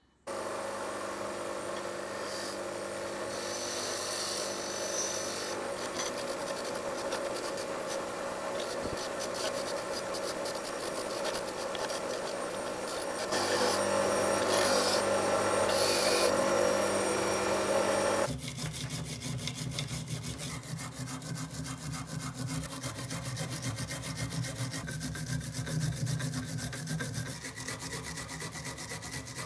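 Bench grinder running while a rusty metal part is held against its spinning wire brush and wheel, stripping the rust, louder for a few seconds in the middle. About eighteen seconds in, this gives way to a hand file rasping back and forth over the metal part.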